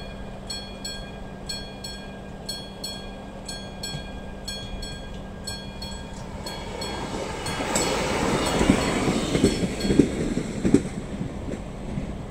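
Level-crossing warning bell ringing in a steady repeating rhythm, stopping about halfway through. A Czech Railways Regionova diesel railcar then passes over the crossing, getting louder, its wheels clacking over the rail joints, before it fades.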